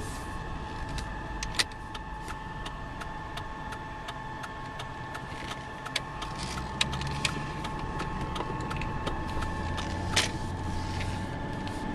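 Car engine and road noise heard from inside the cabin as the car pulls away and turns onto a street. A faint steady high tone sits over the low hum, and small clicks and knocks come scattered throughout, two of them louder.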